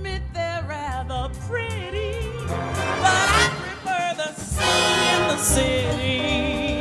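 A song with band accompaniment: a lead singing voice carrying a wavering melody over a steady, pulsing bass line.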